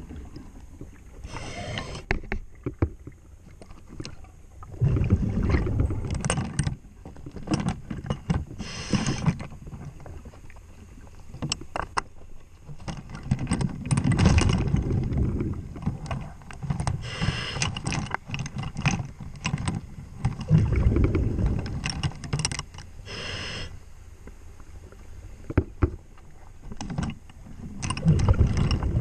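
A diver breathing through a regulator underwater: a brief hiss on each inhale, then a low rumble of exhaled bubbles, four breaths in all. Small knocks and taps from hands working on the saildrive come in between.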